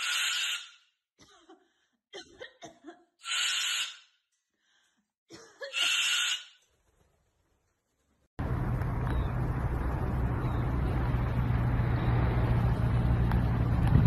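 Sulphur-crested cockatoo giving three loud, harsh calls a few seconds apart, with faint clicks between them. About eight seconds in, a steady rushing noise with a low hum starts.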